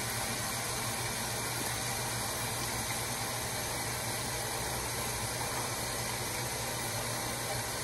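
Bathroom sink tap running steadily into the basin, an even hiss with a faint low hum underneath.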